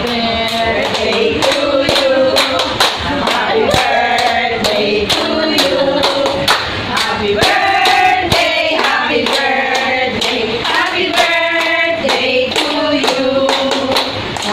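A group of people singing together, with hands clapping along in a steady beat.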